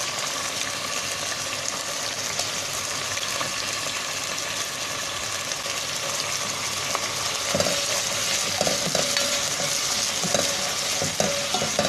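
Cubed chicken and onion sizzling steadily in hot oil in a pan. In the second half a spoon stirs through the pieces, with light scrapes and knocks against the pan.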